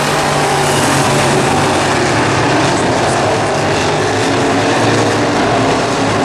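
Race car engines running loud and steady at racing speed, several engine tones sounding together with small shifts in pitch.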